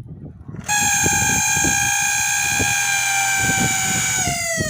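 LG MS3047G microwave's cooling fan, taken out of the oven and powered on its own, giving a loud, steady high whine that slides down in pitch and dies away near the end as it stops. This whine is the strange noise the microwave had, traced to the fan.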